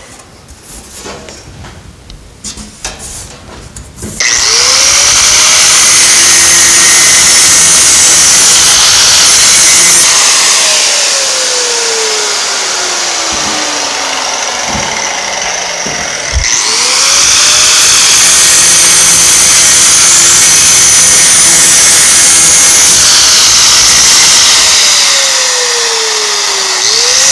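Angle grinder with a 3M Roloc abrasive disc engine-turning an aluminum sheet. It spins up about four seconds in with a loud, high whine and runs steadily. It winds down slowly from about ten seconds, is started again around sixteen seconds, winds down again near the end and starts once more.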